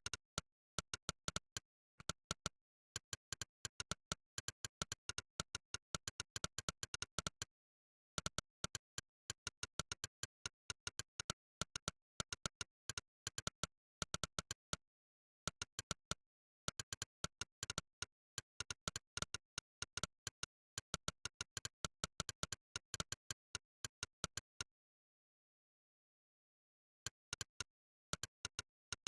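Monkeytype's synthetic "click" keypress sound, one click per typed key, in fast runs of clicks broken by short pauses between bursts of typing, with a longer pause of about two and a half seconds near the end.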